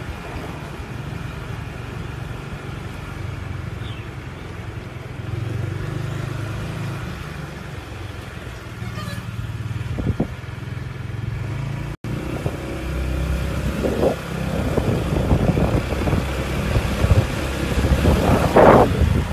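Motorbike engine running at riding speed. About twelve seconds in the sound changes abruptly, and heavy wind buffets the microphone over the engine for the rest.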